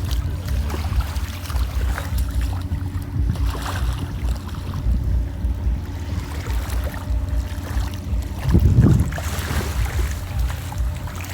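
Sea-Doo jet ski engine running at a steady pitch under way, with wind buffeting the microphone and water noise; a louder rush of wind and spray about eight and a half seconds in.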